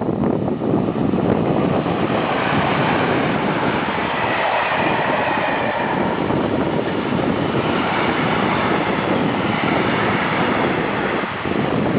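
A train running past at speed: a steady, loud noise of wheels on the rails, mixed with wind on the microphone.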